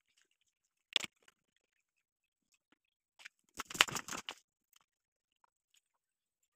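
Mostly near silence, broken by a single sharp click about a second in and a short scraping rattle around four seconds in.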